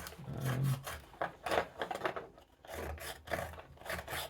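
Steel brush scratching across a whitemetal wagon side in short, irregular strokes, scoring a wood-grain texture into the cast planks.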